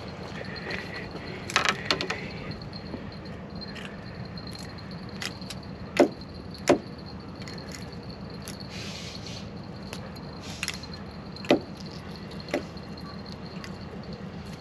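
Fishing tackle being handled while a hook is baited with squid: scattered sharp clicks and knocks over a steady hiss. There is a small cluster about a second and a half in, two loud clacks about six seconds in, and another near the end.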